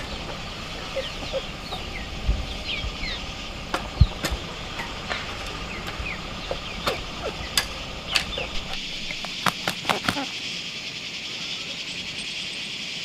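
Hoe blade chopping into dry, loose soil: irregular dull strikes, the loudest about 4 seconds in, stopping about two-thirds of the way through. Birds chirp throughout over a steady high background hiss.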